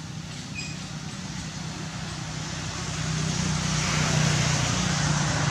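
A motor vehicle on a nearby road, its low engine hum and tyre noise growing louder from about three seconds in as it approaches. A short high chirp sounds about half a second in.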